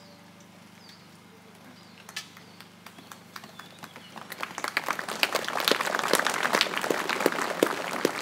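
Crowd applauding: a few scattered claps at first, swelling to full applause about halfway through.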